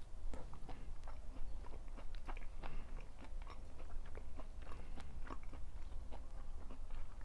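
A person chewing food close to the microphone, with many small irregular crunches and wet clicks of the mouth.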